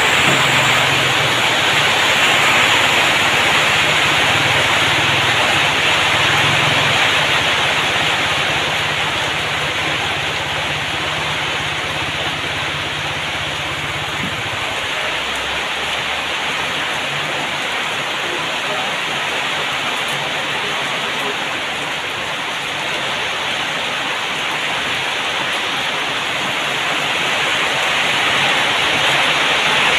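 Rain falling steadily, an even hiss of water. A low hum underneath stops about halfway through.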